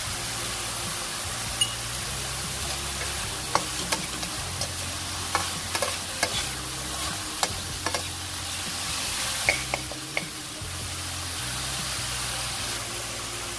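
Minced beef, diced long beans and chilies sizzling in a hot wok while a metal spatula stirs them. The spatula scrapes the wok and gives a string of sharp clicks through the middle.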